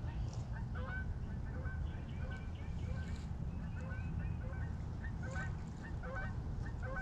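Geese honking over and over in short calls, one or two a second, over a steady low rumble.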